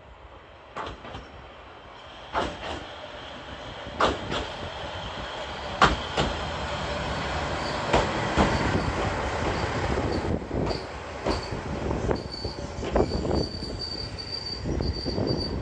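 Kishu Railway KR301, a single-car diesel railcar, running in past the platform, its wheels knocking over rail joints as the running noise grows louder. From about two-thirds of the way through, a high squeal comes and goes as it slows to a stop.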